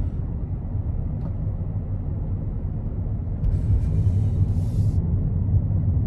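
Low, steady road and engine rumble inside the cabin of a moving Daihatsu Taft kei car. About halfway through the rumble grows louder and a high hiss joins it for about a second and a half.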